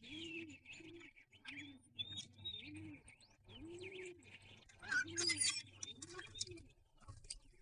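Birds calling: a low call repeated over and over in short arching notes, with higher chirps and twitters over it that are busiest about five seconds in.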